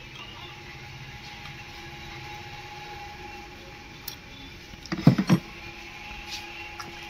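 Metal tools knocking on the engine while a newly fitted diesel injector nozzle is tightened: a quick cluster of three or four loud clanks about five seconds in, over a steady faint hum.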